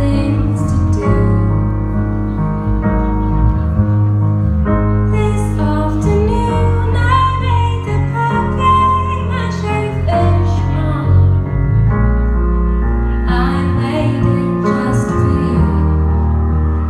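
A woman singing live into a microphone over piano accompaniment and sustained low bass notes, in a concert hall.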